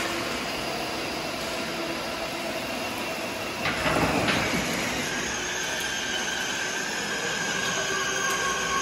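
Electric ride-on toy Toyota Land Cruiser driving, its motors and gearboxes whining steadily as the wheels roll over concrete. About four seconds in, a louder rattling clatter comes as the wheels cross a metal drain grate.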